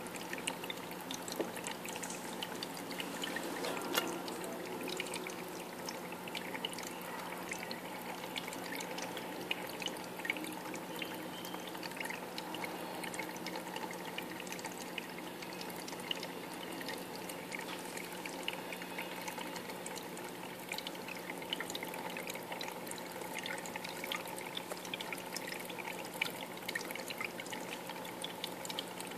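Aquarium water trickling and splashing steadily, with small crackles, over a steady low hum.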